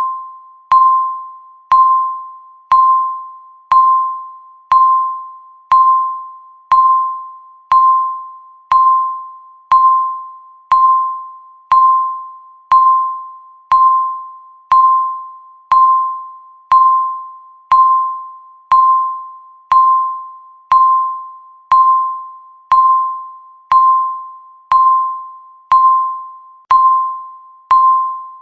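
Countdown timer beeping once a second: the same single bell-like tone each time, starting sharply and fading away before the next.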